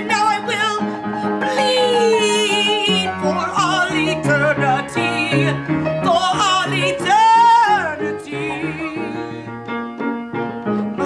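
Music: a song with a singer holding wavering, vibrato-laden notes over an instrumental backing with a moving bass line.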